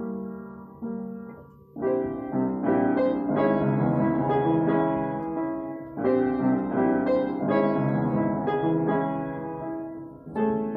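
Solo piano playing: a soft phrase dies away, then fuller, louder chords come in about two seconds in and carry on, with a brief dip and fresh entry near the end.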